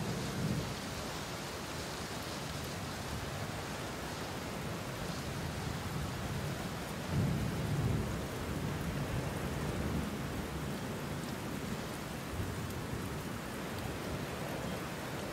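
Steady rain falling with low rolls of thunder, the strongest rumble about seven seconds in.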